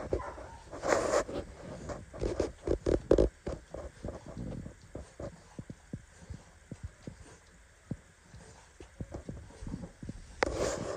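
Cane Corso puppies suckling at their standing mother, with soft irregular clicks and smacks and shuffling in wood shavings. A few louder bursts come in the first three seconds, then the clicks grow sparser.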